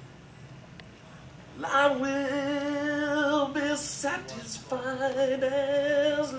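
A solo voice singing unaccompanied, slow and hymn-like, holding two long notes with vibrato at about the same pitch. The first begins about a second and a half in; there is a breath near the middle, then the second note is held to the end.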